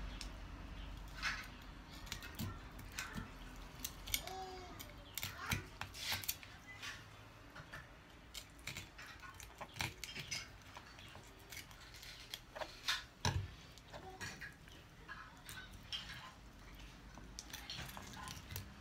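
Kitchen knife scraping and clicking on a whole rockfish and a plastic cutting board, in faint, irregular short strokes, as the fish is cleaned for its gills and guts to be removed.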